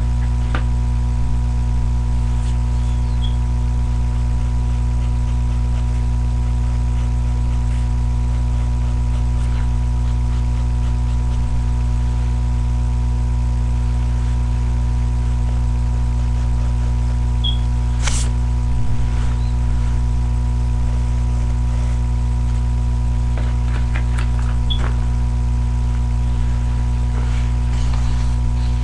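A steady low hum with several fixed tones, unchanging throughout, with a few faint clicks scattered over it, the clearest about 18 seconds in.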